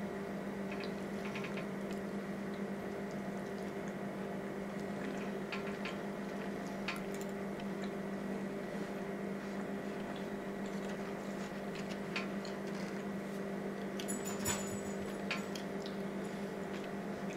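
Close-up chewing and wet, squishy mouth sounds of someone eating, with a few faint clicks of a metal fork against a styrofoam food container. A steady low hum runs underneath.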